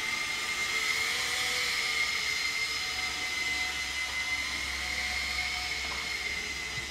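MJX F647 micro RC helicopter flying slowly in its first speed mode: a steady high whine from its small electric motors and rotor, the pitch wavering slightly as it manoeuvres.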